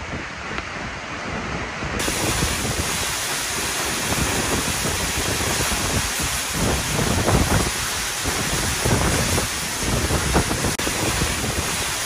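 Seljalandsfoss waterfall pouring into its plunge pool close by, a loud steady rush of falling water and spray, with wind gusting on the microphone. The sound cuts off suddenly at the end.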